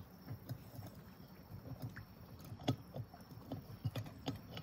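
Camp stove being screwed onto a gas canister: a few sharp metal clicks and taps over soft, irregular low knocks of handling.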